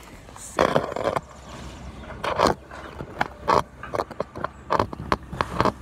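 Handling noise on a phone: fingers rubbing and knocking against the phone's body and microphone in irregular bursts of scraping noise.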